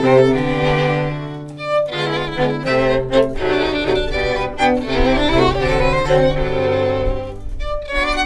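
String quartet playing: bowed violins carry a melody over a sustained low cello line, with short breaths between phrases a little under a second in and near the end.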